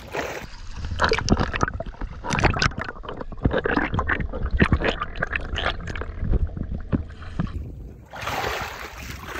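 Underwater sound of a snorkeler diving beside a sailboat hull: bubbles gurgling amid many short, irregular knocks and clicks. Near the end this gives way to splashing at the surface.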